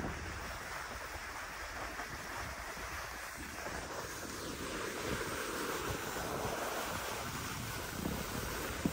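Wind rushing over the microphone while skiing, with skis sliding on groomed snow, a steady rushing hiss.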